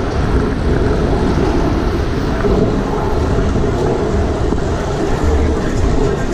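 Wind rushing and buffeting over a chest-mounted action camera's microphone while riding through city traffic, with the noise of nearby cars and tyres on the street underneath.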